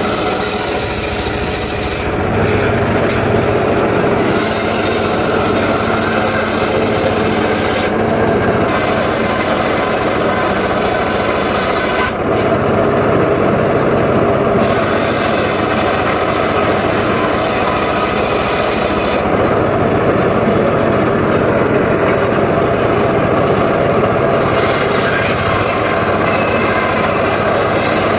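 Engine-driven saw cutting sengon wood: a continuous rasping of the blade through the timber over the running motor, the higher hiss fading and returning several times as the cut changes.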